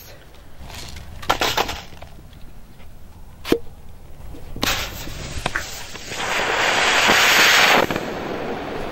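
Smoke grenade going off: a sharp crack about three and a half seconds in, then a hiss as it burns and spews smoke, loudest for a couple of seconds near the end before settling to a steadier hiss.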